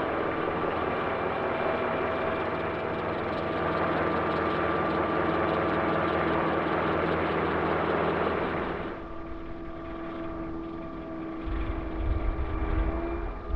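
Radio-controlled scale Westland Lynx helicopter flying past, its rotors and drive running steadily with a constant whine. About nine seconds in the sound drops and turns duller as it climbs away, and a low rumble comes in near the end.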